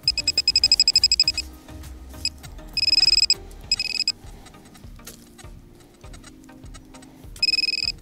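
Handheld metal-detector pinpointer beeping as it is passed over a handful of dug soil. A fast run of short beeps comes first, then short steady tones about three and four seconds in and again near the end, signalling metal in the soil: a piece of foil.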